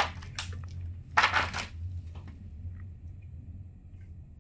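Handling noise from a TV backlight: a sharp click, then about a second in a short crinkling rustle of the thin plastic reflector sheet and LED strip parts being moved. A low steady hum runs underneath.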